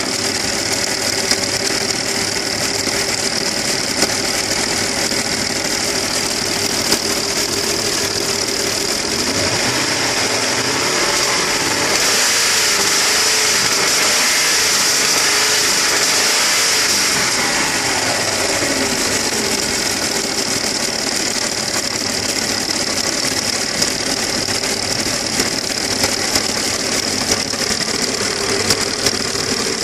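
AKG engine running with a connecting-rod knock, sharp knocks ticking over its steady note. About ten seconds in it is revved up, held higher for several seconds, then let back down to idle.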